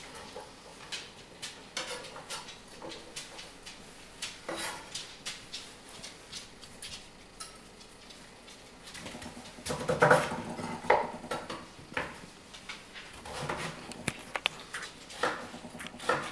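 Chef's knife dicing sweet potato on a wooden cutting board: irregular knocks of the blade on the board, with a louder burst of sound about ten seconds in.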